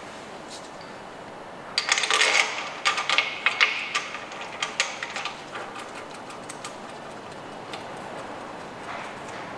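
Crankshaft pulley being seated on the crank nose of a Ford 1.8 TDCi diesel and its centre bolt started by hand: a cluster of light metal clicks and scrapes lasting about three seconds, starting about two seconds in, then a few softer ticks.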